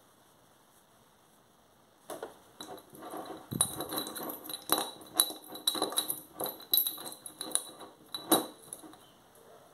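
Fingers rummaging in a small glass jar of pins and bobbins: rapid, irregular clinking of metal against glass. It starts about two seconds in and stops just before the end.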